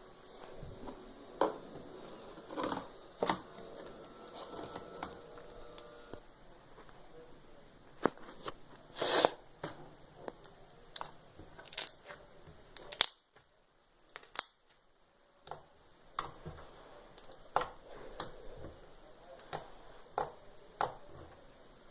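Slime being squished and stretched by hand: irregular sticky pops and clicks, with a longer, louder crackle about nine seconds in.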